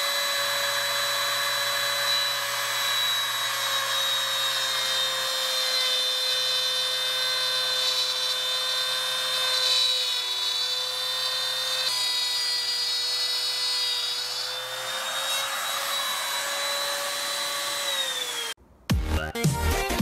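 Ryobi MTR-42 trim router running at full speed and routing a groove along a softwood board: a steady high whine with the hiss of the bit cutting wood. Its pitch sags a little under load midway and recovers, then falls as the motor begins to wind down near the end before the sound stops abruptly.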